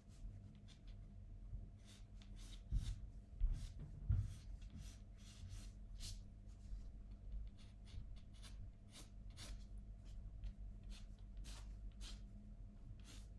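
A hard H graphite pencil sketching on watercolour paper, in a series of short, irregular strokes. A few low bumps come about three to four seconds in.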